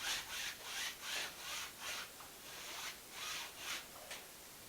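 A paintbrush swishing back and forth across the painting surface in horizontal strokes, roughly two a second, laying in the water of a lake.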